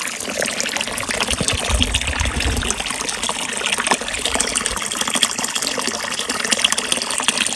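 A thin stream of water pouring and splashing steadily into a small pond, with a constant patter of small splashes and bubbling.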